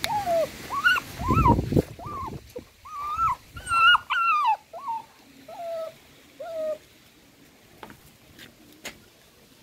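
A young puppy whimpering: a quick run of short, high whines, each rising and falling in pitch, that stops about seven seconds in. These are the cries of a frightened puppy.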